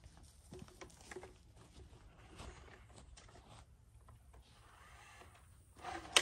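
Faint scattered footsteps and small handling clicks of hand work outdoors, ending in one sharp click near the end.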